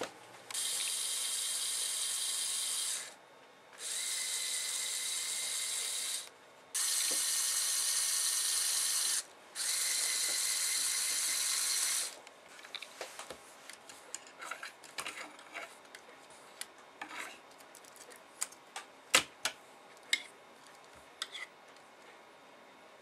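Small electric motor and plastic gears of a remote-controlled Lego Technic model whirring with a steady whine in four runs of about two and a half seconds each, short pauses between them. After that, scattered plastic clicks and ticks.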